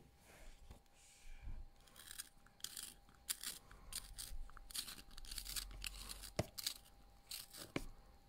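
Faint, irregular crackling and scraping as a small clear pink plastic pencil sharpener with shavings inside is handled, with two sharper clicks near the end.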